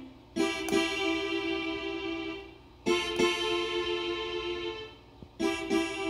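Casio WK-245 digital keyboard sounding one of its built-in voices: a chord struck three times, about two and a half seconds apart, each held and fading away.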